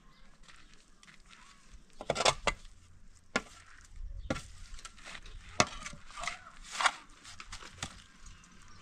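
Metal shovel blade scraping and striking stony dirt, an irregular series of sharp scrapes and knocks, the loudest about two seconds in and again near the middle and later.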